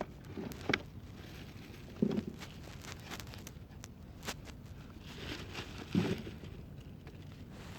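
Three irregular soft thumps, about a second, two seconds and six seconds in, with faint crackles over a low steady rumble.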